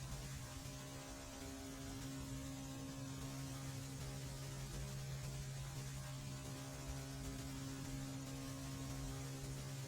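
Steady low electrical hum with several overtones over faint hiss, holding unchanged throughout.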